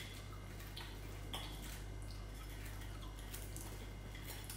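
Fingers tearing apart a crispy fried fish, giving a few faint, scattered crackles and clicks over a steady low hum.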